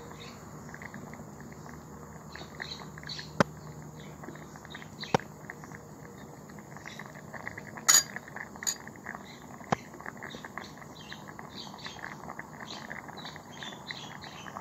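Smoked-beef and potato curry in coconut milk bubbling gently in an amber glass pot, with small irregular pops and a few sharp clinks. Faint high chirps sound in the background.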